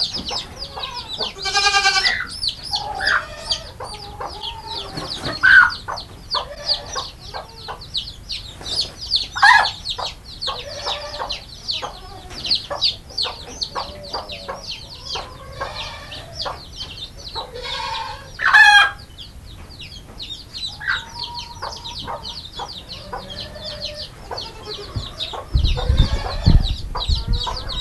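A brood of bantam chicks peeping continuously and high-pitched, with a hen clucking now and then. Low thumps near the end.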